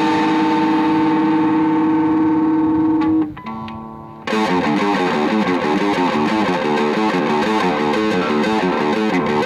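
Metalcore music with distorted electric guitars: a held chord breaks off about three seconds in, a quieter held note follows for about a second, then a fast, rhythmic riff comes in.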